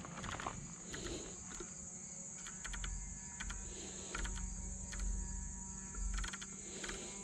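Insects trilling steadily in one high, even band, with a faint low hum underneath and light clicks now and then.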